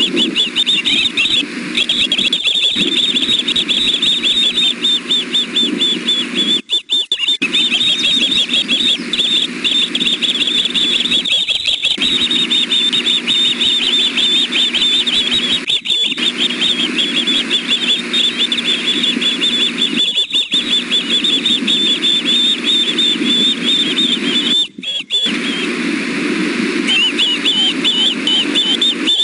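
Juvenile ospreys food-begging: a continuous stream of rapid, high-pitched chirping calls that eases briefly near the end, over a steady low hum.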